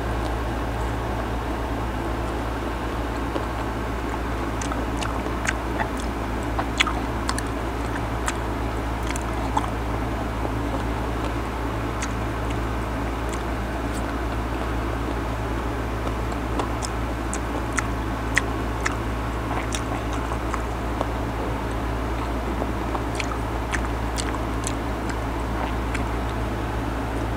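Close-up biting and chewing of half-ripe mango slices, with scattered crisp crunches in little clusters, over a steady low hum.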